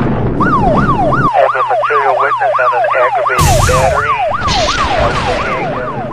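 Electronic siren in a fast yelp, a falling whine repeating about three times a second, over a noisy whooshing rush, with a sharp hit about three and a half seconds in.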